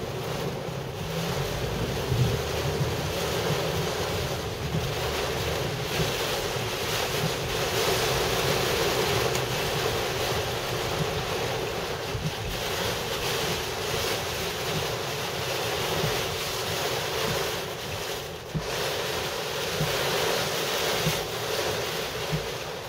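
Heavy rain falling on a car's roof and windshield, heard from inside the cabin as a steady rush of noise.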